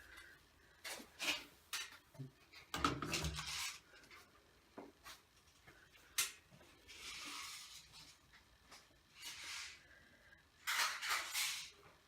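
Scattered short clicks, knocks and rustling noises with quiet gaps between them.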